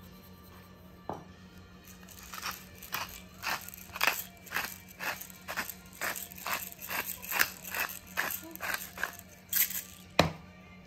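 Hand pepper mill being twisted, grinding peppercorns in a steady series of short strokes, about two a second, with a single knock near the end.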